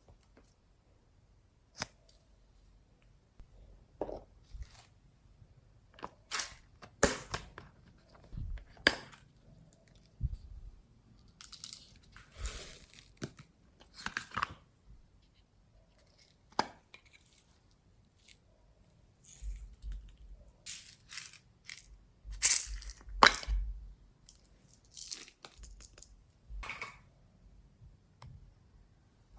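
Glossy slime being pressed, stretched and folded by hand, giving irregular crackling pops and squishes in clusters with short pauses between them.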